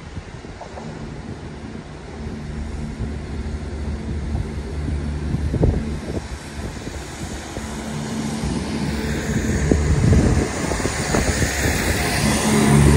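A diesel train's engine running with a steady low drone, getting louder toward the end as a hiss builds over it, with a couple of knocks midway.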